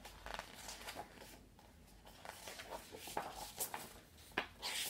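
Faint rustling and soft clicks of a picture book being opened and its pages turned by hand, in a series of short, scattered handling sounds.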